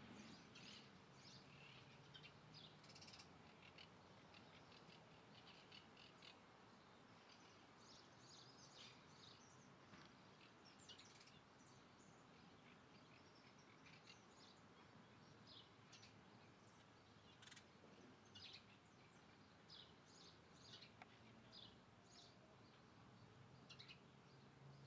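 Faint birds chirping: many short, high calls scattered throughout, over a low background hiss.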